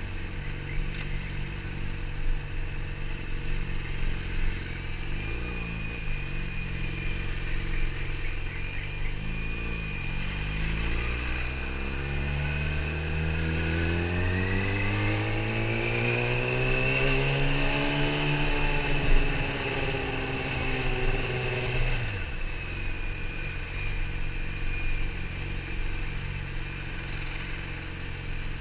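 Yamaha YZF-R6's 600cc inline-four engine running at low road speed, with a couple of short dips in engine note early on. It then rises steadily in pitch for several seconds as the throttle opens and drops back to a low steady run about two-thirds of the way through.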